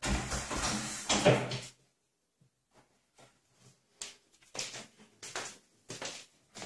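A cat jumps onto a door's lever handle and hangs from it, pulling it down: the handle and latch clatter and the wooden door knocks as it is pushed open, over about the first two seconds. After a quiet gap, a few short soft knocks follow.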